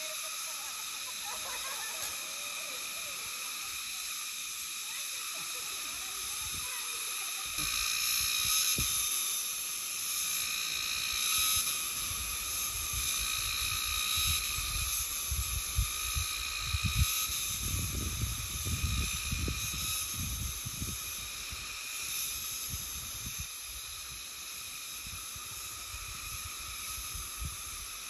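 A steady chorus of forest insects, several shrill high tones held without a break. From about eight seconds in, low gusts of wind buffet the microphone, loudest a little past the middle.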